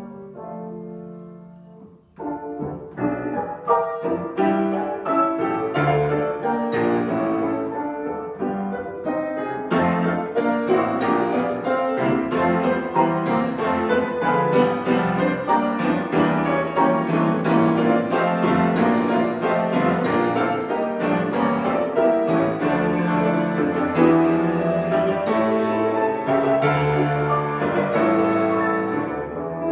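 Solo grand piano playing a classical piece. A soft passage dies away to a brief pause about two seconds in, then a louder, fuller passage of many quick notes follows.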